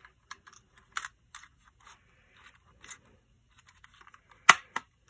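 Small clicks and light scraping of a Stuzzi Memocord pocket tape recorder's metal case being handled and put back together, with two sharp clicks about four and a half seconds in as a part snaps into place.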